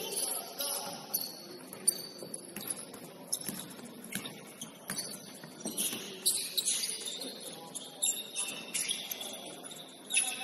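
Game sounds on an indoor basketball court: short high squeaks of sneakers on the floor and scattered sharp knocks of the ball bouncing, at irregular moments throughout.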